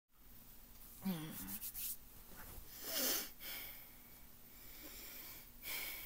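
A person taking deep, wheezy breaths: three loud breaths, the first two with a voiced, sighing pitch, the last a sharp inhale near the end. They are the deep breaths taken to fill the lungs before a breath-hold.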